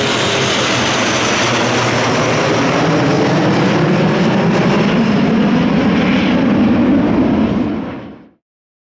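Formation of Alpha Jet trainers passing overhead, the steady noise of their twin turbofan engines filling the sky, growing slightly louder before it fades out quickly about eight seconds in.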